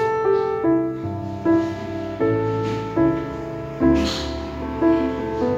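Background music: a slow, gentle melody of held notes, changing about twice a second, with a short soft hiss about four seconds in.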